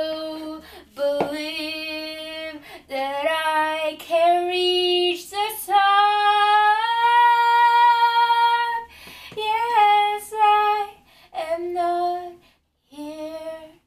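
A woman singing unaccompanied, in several phrases separated by short breaths. In the middle she holds one long note for about three seconds.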